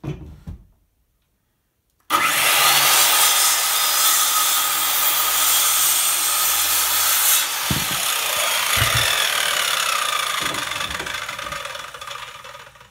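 Corded circular saw starting up suddenly about two seconds in and cutting through a wooden board for about five seconds. After the cut the blade spins down with a slowly falling whine that fades out near the end. Two dull knocks come as it winds down.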